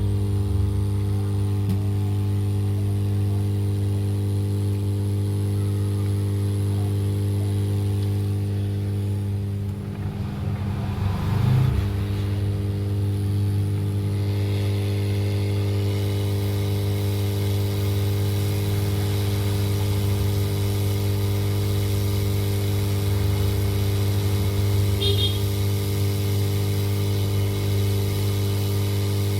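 Soldering station running with a steady electrical hum, a low drone with evenly spaced overtones, while a phone's charging jack is being desoldered from the board. A brief handling noise comes about eleven seconds in.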